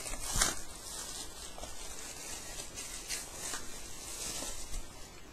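Handling noise from speaker cables being sorted and plugged into the subwoofer: a few short clicks and rustles, the loudest about half a second in, over a steady hiss.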